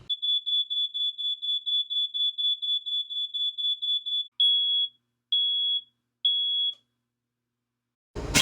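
Smoke alarm sounding: a high-pitched beep repeating rapidly, about four or five times a second, then three longer beeps in a row, the temporal-three pattern that signals fire and means evacuate. Near the end a louder fire alarm with a sweeping up-and-down tone starts.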